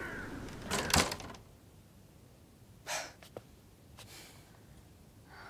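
A glass-paned wooden door being pulled shut, with a knock about a second in. After it come a soft breath-like hiss and a few faint clicks.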